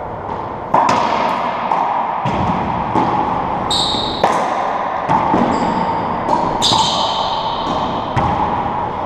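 Racquetball rally: about six sharp hits, a couple of seconds apart, as the rubber ball is struck by racquets and slams off the court walls, each echoing in the enclosed court. Two brief high-pitched squeaks, likely sneakers on the hardwood floor, come about four seconds in and again near seven seconds.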